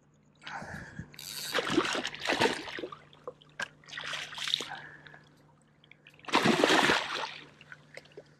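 A hooked snook thrashing in shallow water at the shore, splashing in four bouts, the last and loudest about three-quarters of the way through.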